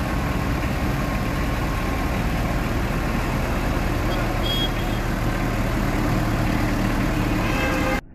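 VST Shakti MT 932 30 hp mini tractor's diesel engine running steadily at low speed as the tractor creeps forward. The sound cuts off abruptly near the end.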